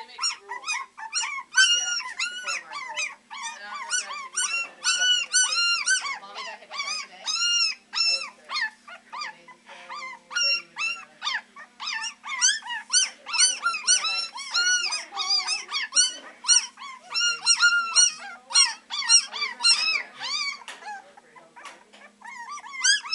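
A litter of three-week-old beagle puppies baying and howling together: many short, high-pitched cries, each rising and falling in pitch, several a second and overlapping, with hardly a pause.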